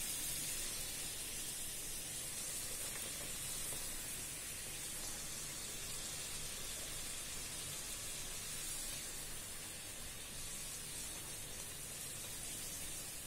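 A bedmi poori deep-frying in hot oil: a steady, high-pitched sizzle that sets in suddenly at the start.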